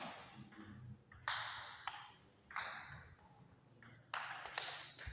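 Table tennis rally: the ball clicking off the rubber bats and bouncing on the table, about eight sharp hits in five seconds at an uneven pace, each with a short ringing tail.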